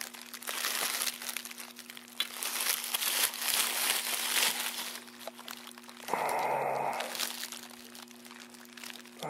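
Plastic bubble wrap crinkling and crackling irregularly as the packed chassis is handled. A steady low hum runs underneath.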